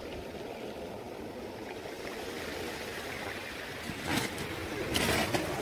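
Small waves washing up and drawing back over a pebble beach: a steady wash, with louder hissing surges about four and five seconds in.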